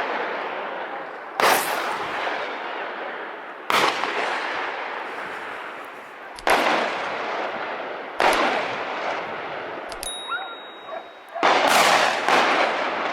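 A series of hunting gunshots, about five, one every two to three seconds, each a sharp crack followed by a long echoing tail. The last two come close together near the end.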